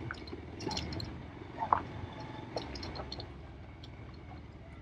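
Bajaj Pulsar motorcycle's single-cylinder engine running at low speed as the bike rolls slowly, a low steady rumble, with scattered light clicks and one sharper knock about a second and a half in.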